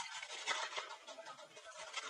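Kitchen knife slicing through a head of red cabbage on a cutting board, several cuts in quick succession.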